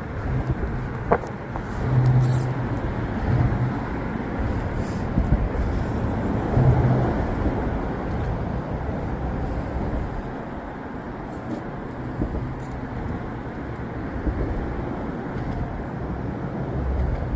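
Electric RC rock crawler driving over rock, its motor and geared drivetrain running under load with the tyres scrabbling, swelling and easing as it climbs. A sharp click about a second in.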